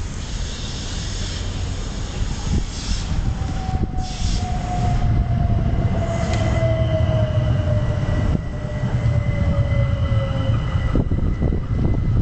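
Electric multiple-unit train running past along the platform: a steady low rumble of wheels on rail, with a drawn-out whine that falls slowly in pitch, typical of a train braking. A thin, steady high squeal joins partway through, and there are a few wheel clicks near the end.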